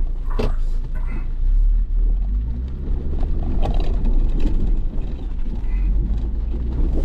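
Off-road 4x4 engine running at low speed with a heavy, steady low rumble, broken by scattered short knocks and clicks.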